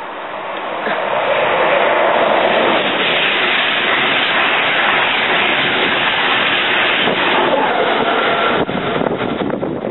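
InterCity 225 express passing at speed, Class 82 driving van trailer leading, Mark 4 coaches behind and a Class 91 electric locomotive at the rear. A steady rush of wheels on rail and air builds over the first second or so, holds, then falls away near the end.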